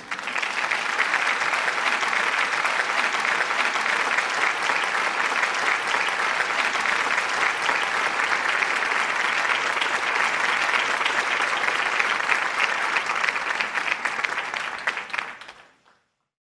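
Applause welcoming a guest onto a talk-show set: steady clapping that starts abruptly and fades out near the end.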